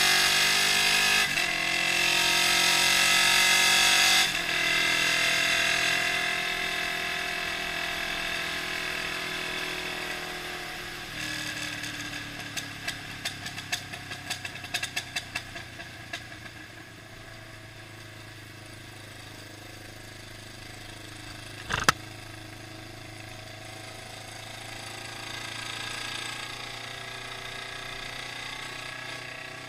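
Honda CB500 motorcycle engine and exhaust under way: revs climb and drop at two upshifts in the first few seconds, then the throttle is closed and the revs fall steadily for several seconds. A string of sharp pops follows as it slows, then a lower steady engine note with one loud crack about two-thirds of the way through and a short rise in revs near the end.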